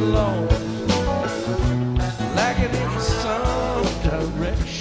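Background song with a singing voice over a steady beat of drums and bass.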